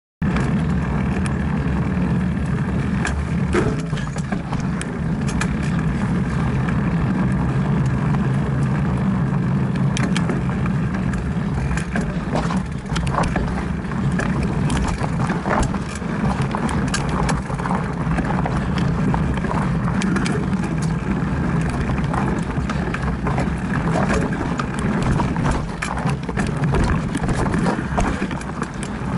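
Mountain bike ridden fast over a rocky dirt trail, picked up by a camera mounted on the bike or rider: a steady rumble of wind and vibration, with frequent sharp clicks and knocks as the bike rattles over rocks and roots.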